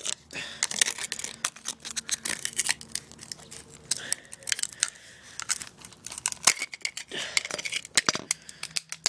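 Dense, irregular crackling and clicking from the broken iPod touch and its damaged lithium battery, some clicks sharp and loud, with a hissing crackle in places.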